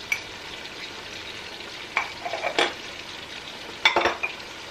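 A spoon clinking and scraping in a small ceramic cup of ground spice, a few sharp taps and knocks as spice is spooned out and a spice jar is handled, over the steady hiss of food cooking in pots on the stove.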